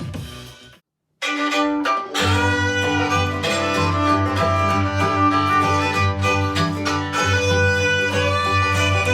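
Music played on a portable Bluetooth speaker for a sound test. One track dies away in the first second, and after a brief silence a new piece starts, with violin and strings over a strong, steady bass.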